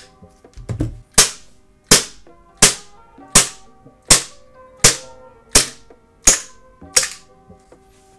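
Tokyo Marui Glock 19 Gen.3 gas blowback airsoft pistol firing nine shots in a steady string, about 0.7 s apart. Each shot is a sharp crack that dies away quickly.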